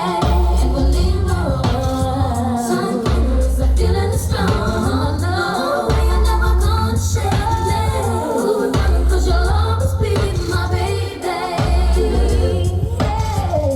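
A song with singing over a heavy, pulsing bass line.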